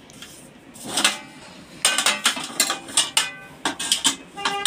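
Metal momo steamer pots and perforated tiers clanking against each other as they are handled and stacked: one knock about a second in, then from about two seconds on a quick run of sharp metallic clinks that ring briefly.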